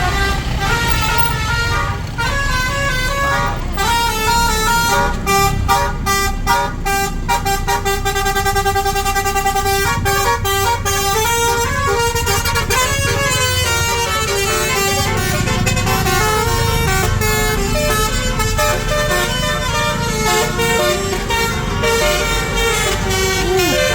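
Basuri telolet musical air horn on an Indonesian tour bus, its roof-mounted trumpets playing a fast tune of short stepped notes without pause, over a low rumble.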